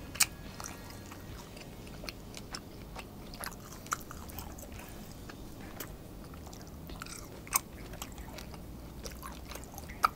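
Close-up chewing of tender grilled wagyu picanha steak, with scattered sharp wet mouth clicks every second or so.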